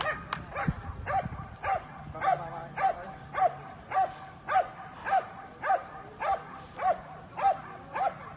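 Belgian Malinois barking steadily at a protection helper, about two barks a second, each bark short and dropping in pitch at its end.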